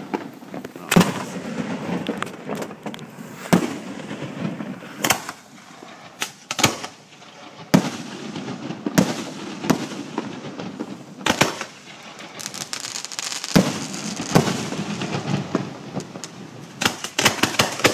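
Fireworks display going off close by: loud, sharp bangs at irregular intervals, with a quick cluster of cracks near the end.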